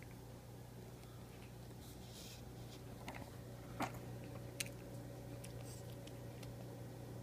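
A Mi-ki dog chewing a dried chicken strip: scattered wet crackles and a few sharp crunches, the loudest a little before halfway, over a steady low hum.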